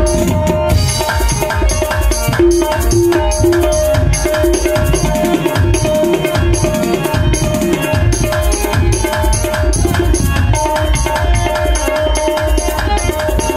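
Live tabla and harmonium playing a fast, even dance rhythm: quick hand-drum strokes over steady held reed notes.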